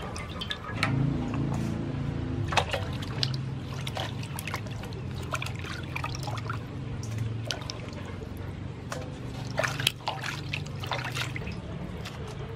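Water splashing and sloshing in a steel bowl as a raw beef joint is rubbed and turned by hand, with scattered splashes and drips. A low hum runs underneath from about a second in until near the end.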